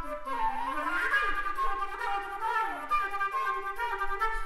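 Solo flute playing with bending, sliding pitches, including a rising sweep about a second in.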